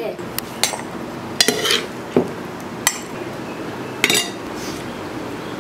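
Stainless-steel kitchen vessels and a serving spoon clinking and knocking: several separate, irregularly spaced clatters over a steady background hiss.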